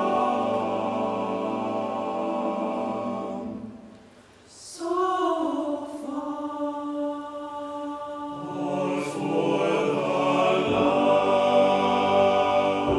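A mixed choir singing a slow Christmas song in long held notes. About four seconds in the chord fades to a brief hush, then the voices come back in softly and swell fuller near the end.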